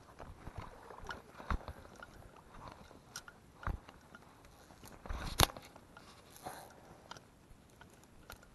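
Close-up handling noise of a fly rod and reel being worked by hand. Scattered clicks, taps and rustles of hands and line, with a sharp click about five and a half seconds in as the loudest.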